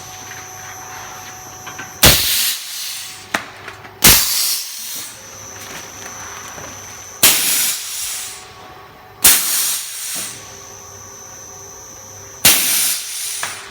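Guillotine cutting machine for raw rubber working through its cycles: five sudden loud hisses, each about a second long, coming in pairs about two seconds apart, with a steady machine hum between them.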